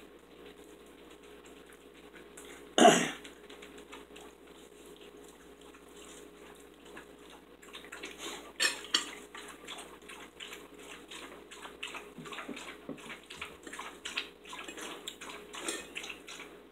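Forks and knives clinking and scraping on ceramic dinner plates during a meal, with a sharp clatter about three seconds in and quick clicks that come thicker in the second half.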